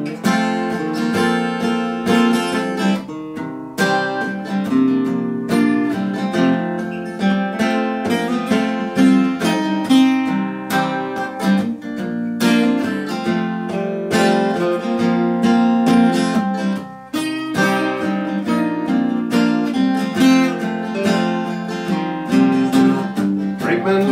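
Acoustic guitar strummed in a steady rhythm, playing a folk tune without singing.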